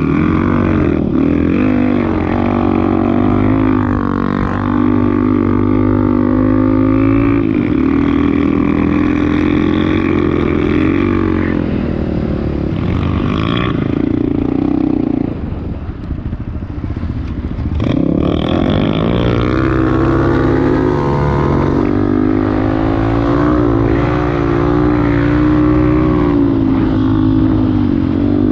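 Off-road vehicle engine running hard, its revs rising and falling. It eases off for a couple of seconds about fifteen seconds in, then picks up again.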